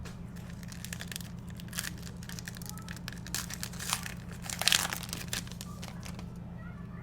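Crinkly rustling of a foil trading-card pack wrapper being handled and torn open, in irregular bursts with the loudest crinkle just before five seconds in, over a steady low hum.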